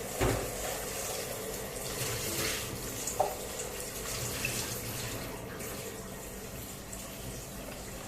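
Kitchen tap running steadily into a sink, with a single sharp knock about three seconds in.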